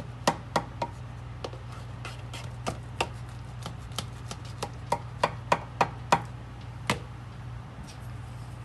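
A serrated pizza knife cutting a slice of pizza bake in a metal baking pan: a dozen or so irregular sharp clicks and knocks as the blade strikes the pan, stopping about seven seconds in.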